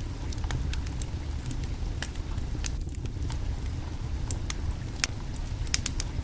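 Wood fire crackling under a cooking pot: scattered sharp pops and snaps, irregular and several a second, over a steady low rumble.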